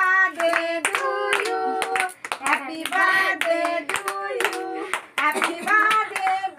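Several voices singing together, with hands clapping along in a steady beat.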